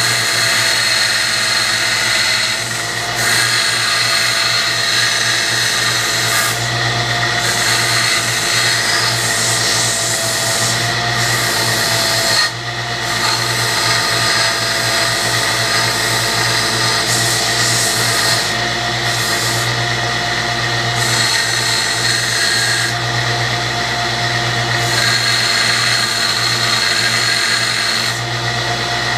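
Electric grinder running steadily with a loud, rough grinding hiss over a low motor hum; the hiss eases off briefly several times.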